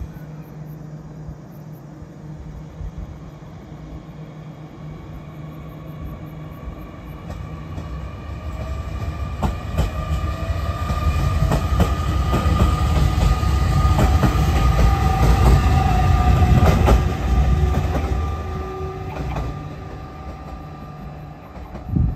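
JR Kyushu 817 series electric train pulling into the station: a low rumble builds with a run of wheel clicks over the rail joints and a steady motor whine, loudest as it draws alongside, then easing off as it slows. A short thump comes right at the end.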